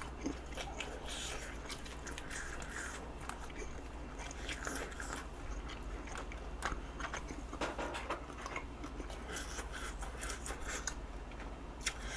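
A person chewing close to the microphone: wet, irregular chewing with small crunches, from a mouthful of spicy braised short ribs wrapped in pickled perilla leaf and pickled radish.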